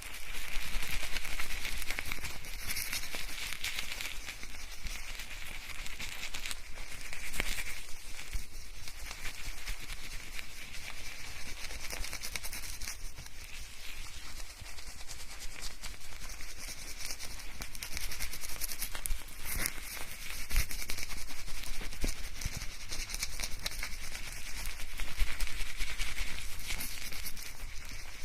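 Hair being lathered and scrubbed with shampoo, recorded binaurally close to the head: a continuous, mostly high-pitched rustling friction sound that swells and eases in waves.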